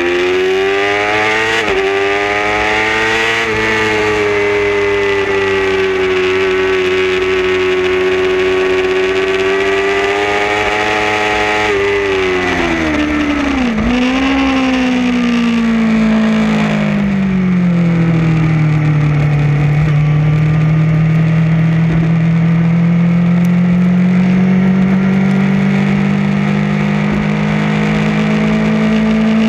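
Racing motorcycle engine, heard from onboard over wind rush. It pulls hard at high revs with a quick upshift about two seconds in and holds high revs. About twelve seconds in it drops sharply through downshifts with a brief blip, then falls to low revs for a corner. From about twenty seconds in it builds slowly and steadily again under acceleration.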